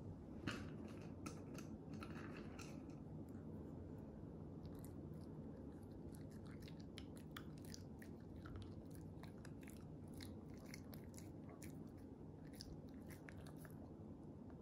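Shih Tzu's mouth smacking and chewing, many small irregular clicks, several a second, over a faint low hum.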